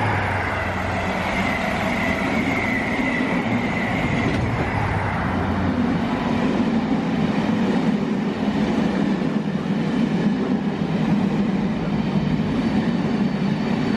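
A DB Schenker Class 66 diesel locomotive, with its two-stroke V12 engine, passes close by at speed, hauling a long rake of hopper wagons. The locomotive's engine drone fades after about five seconds, leaving the steady rumble of the wagons' wheels on the rails.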